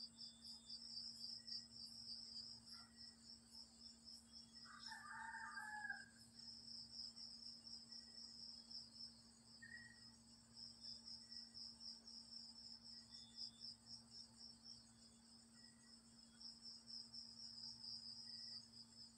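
Crickets chirping steadily in a fast, pulsing trill, faint over a low steady hum. About five seconds in, one short call from another animal sounds briefly in the distance.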